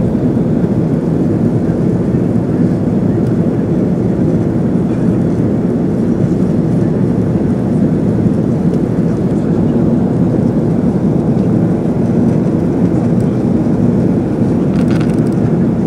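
Steady jet engine and airflow noise inside the cabin of an Airbus A330 climbing after take-off.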